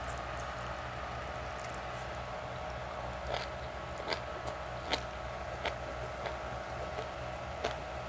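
A person chewing a mouthful of stir-fried fern, with about six short sharp clicks from about three seconds in, over a steady low hum.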